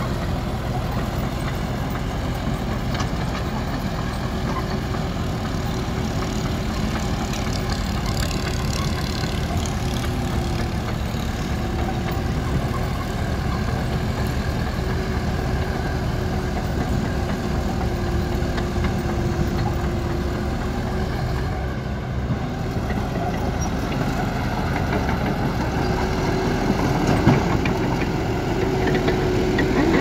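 Diesel engines of a Caterpillar crawler dozer and excavator running steadily under load while they push a broken-down dozer, a little louder near the end.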